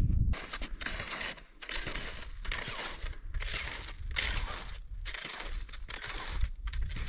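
Walking footsteps crunching on rough ground, a little more than one step a second, over a steady low rumble.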